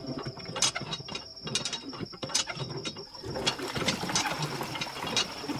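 Hand water pump being worked: repeated metallic clicks and clanks from the handle mechanism, joined about halfway by a rushing hiss of water pouring from the spout.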